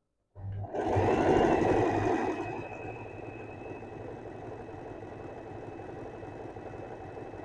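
Usha Janome Allure DLX electric sewing machine running, stitching a darn over a tear in cloth. It starts about half a second in, is louder for the first two seconds or so, then settles into a steady, quieter run with a steady high motor whine.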